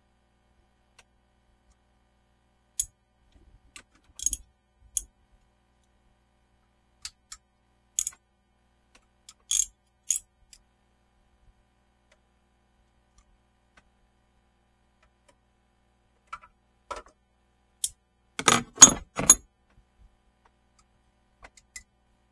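Scattered small metallic clicks and clinks of hand tools and engine parts being handled. A quick cluster of louder knocks comes about three quarters of the way through.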